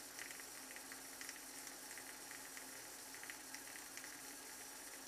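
Shavette razor with a pre-cut half blade scraping through lathered stubble on the neck: a faint, irregular crackle of whiskers being cut.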